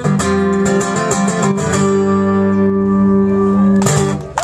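Solo acoustic guitar playing the song's closing chords, ringing on, with a last sharp strum about four seconds in.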